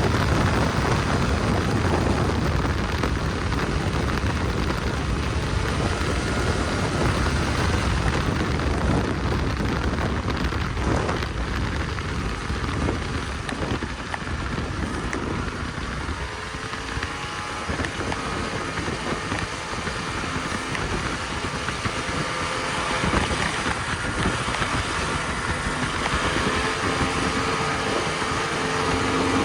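Snowmobile engine running continuously, with a dense rushing noise over it.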